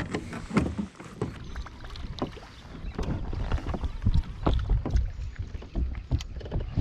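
Sounds of a kayak on the water: irregular knocks, clunks and splashes against the hull, with a light rumble underneath.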